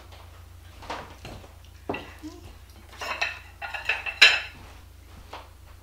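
China dishes clinking as a plate holding a soup bowl is handled and set down on a table: a few scattered clinks, then a cluster of ringing clatters, loudest about four seconds in.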